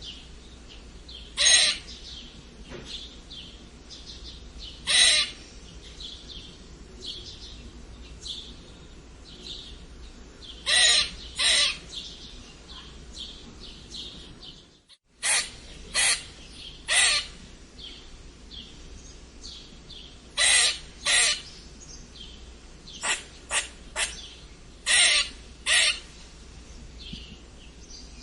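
Squirrel squeaking: short, sharp, high calls, some single and some in quick pairs or threes, every one to four seconds, with fainter chirps in between. The sound cuts out completely for a moment about halfway through.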